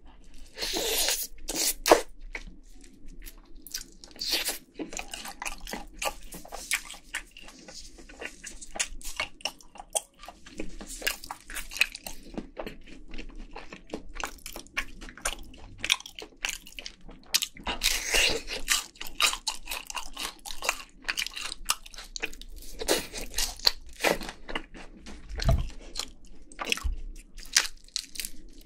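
Close-miked crunching and chewing of crispy Korean fried chicken glazed in red sauce: a run of irregular crisp crackles as the coating is bitten and chewed, loudest in a burst about a second in and again around the middle.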